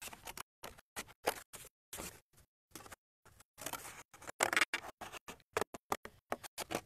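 Scissors snipping through cardboard: a run of short, uneven cuts, loudest and busiest around four to five seconds in.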